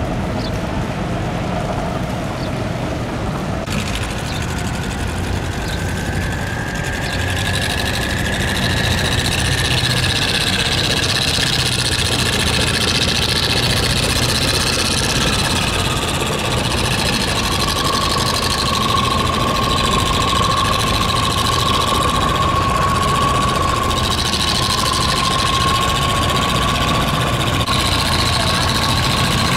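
Boat engine running steadily with a deep hum. It gets louder about four seconds in and is joined by a high whine that slowly drops in pitch through the second half.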